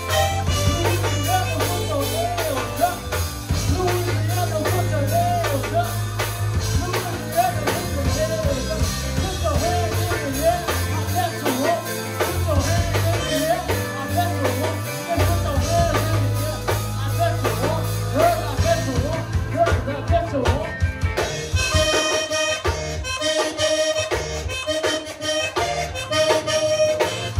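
Zydeco band playing: a reedy accordion lead line that bends in pitch over a steady bass and drum beat. Late on, the bass drops away, leaving quick repeated lead notes over the drums.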